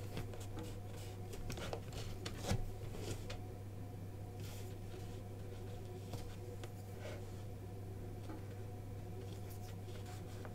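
Paintbrush working acrylic paint on a sheet of paper: faint scratchy strokes and dabs, with one sharper tap about two and a half seconds in, over a steady low hum.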